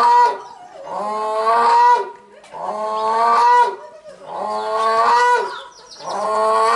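Grey crowned crane calling: a run of long, loud, pitched calls, each about a second long, repeated about every one and a half seconds.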